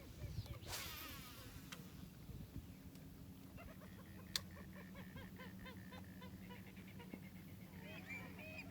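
A marsh bird calling in a rapid series of short clucking notes over a steady low hum, with one sharp click partway through.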